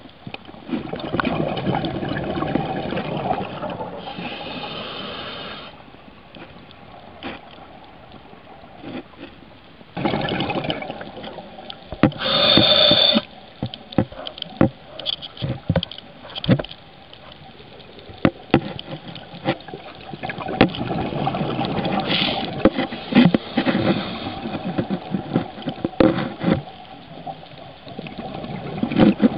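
Scuba breathing underwater: a regulator hissing on the in-breaths and exhaled bubbles rumbling and gurgling, coming and going over a few breaths, with scattered sharp clicks.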